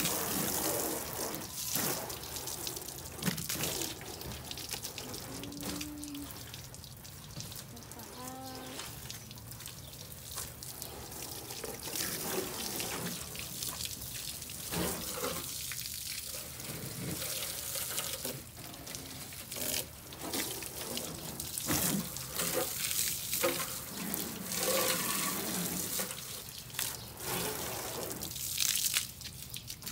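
Water from a garden hose spraying and splashing onto a car's body panels, the hiss and splatter swelling and fading as the stream is moved over the car.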